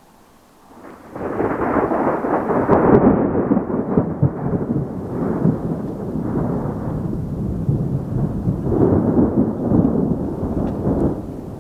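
Thunder rolling from a nearby monsoon storm: a loud, rumbling roll that starts about a second in and swells and fades over several seconds.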